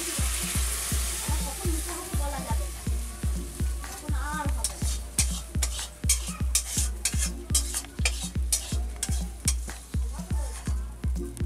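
Food sizzling in an iron wok as a metal spatula stirs and scrapes it, with sharp scraping strokes in quick clusters from about four seconds in. Background music with a steady low beat runs underneath.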